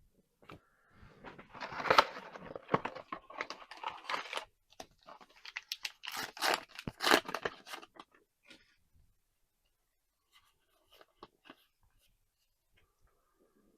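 Trading card pack wrapping crinkling and tearing in two spells of a few seconds each, followed by a few faint clicks of card handling.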